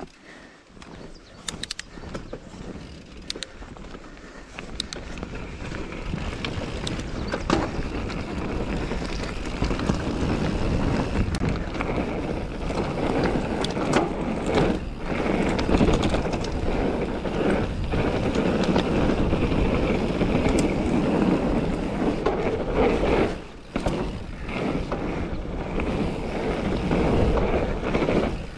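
Mountain bike, a 2016 YT Capra AL 1, ridden on a dirt trail: tyres rolling over the ground with rattling and clicking from the bike, and wind buffeting the microphone. It grows louder over the first several seconds, with a brief lull about 23 seconds in.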